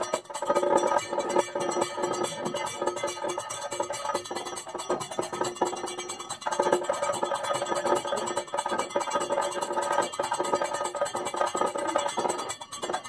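Live Kathakali accompaniment: a drum struck in quick strokes, with a small gong struck in time and ringing on.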